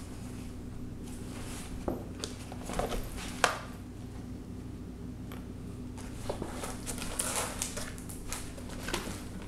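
Cardboard soda-can case scraping, crinkling and knocking on a tile floor as a cat and kitten wrestle in and around it, in irregular bursts; the sharpest knock comes about three and a half seconds in.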